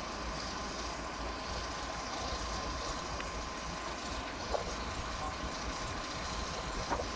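Steady running noise from a truck-mounted crane's engine, with a faint steady whine and low rumble of wind on the microphone; a couple of light knocks come about four and a half and seven seconds in.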